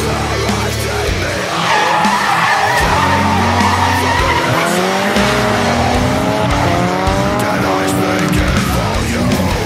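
Drift cars, one of them a Nissan S15, sliding in tandem: engines held at high revs, the pitch swinging up and down and climbing from about two seconds in, with tyres screeching. Background music plays underneath.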